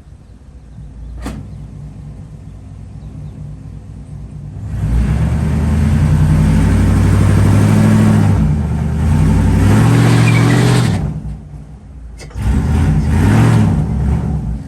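Car engine idling, then revved hard for about six seconds with a brief dip partway, eased off, and revved hard again for about two seconds near the end, in a burnout attempt with a bad transmission.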